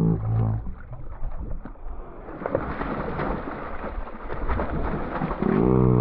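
Hooked speckled trout thrashing at the water surface, a rough run of splashing through the middle. A short wordless voice sound at the start and a louder, drawn-out one near the end.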